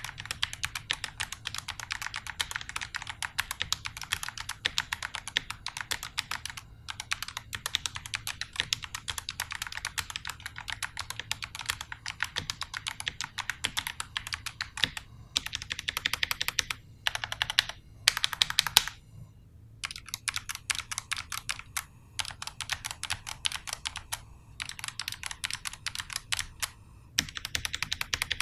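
Typing test on an NYK Nemesis Loki MKN-10 mechanical keyboard with Otemu switches: fast, dense key clacks, broken by a few short pauses.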